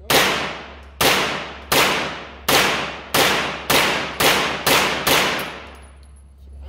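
Nine carbine shots fired one after another at a steady pace that quickens slightly, each sharp report followed by a ringing echo off the concrete walls of an indoor range.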